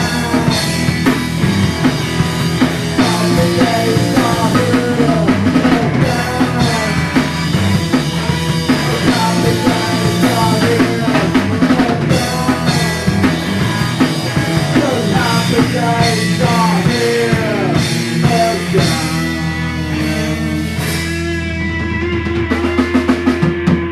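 Grunge rock band playing: drum kit, distorted electric guitars and bass, with some singing. Near the end the band holds a ringing chord over scattered drum hits as the song comes to its close.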